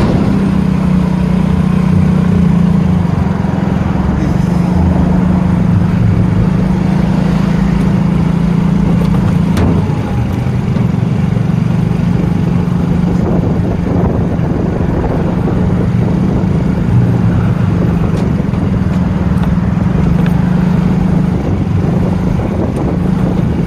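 Small motorcycle engine running at a low, steady speed while being ridden, a continuous low hum that holds one pitch.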